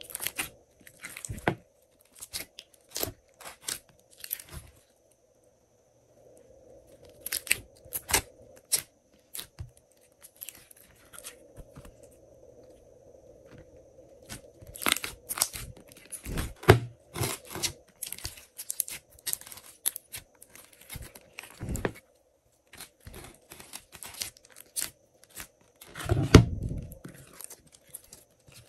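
Hands squishing, pressing and stretching a large mass of glossy glitter slime in a glass dish, making clusters of sticky crackling and popping clicks with short pauses between them. A heavier, lower thud comes near the end.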